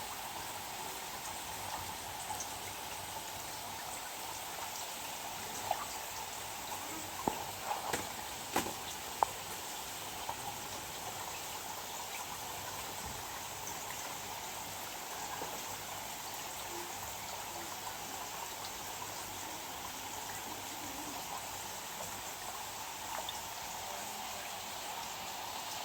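Steady water noise with a few light clicks about seven to nine seconds in.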